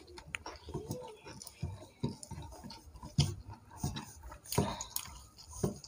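Eating rice and curry by hand: irregular soft clicks and taps as fingers mix and gather rice on the plates, with a few louder ticks.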